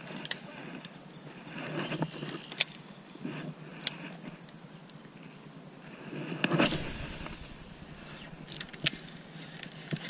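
Handling noise from a baitcasting rod and reel: a few scattered faint clicks and rustles, with one louder brief rush of noise about six and a half seconds in.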